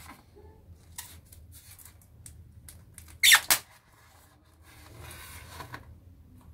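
Expanded-polystyrene (styrofoam) shipping box squeaking as its tight-fitting lid is knifed and pried loose: small scrapes and clicks, then two sharp squeaks in quick succession about three seconds in, followed by softer foam-on-foam rubbing.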